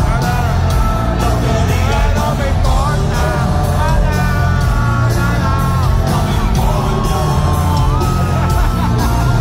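Live concert music over an arena sound system, heard from the stands: sung vocals over a heavy bass line and a steady beat, with the crowd yelling and singing along.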